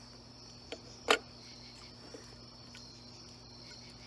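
Crickets chirping in a steady high trill, with a faint click just under a second in and a loud, sharp click about a second in.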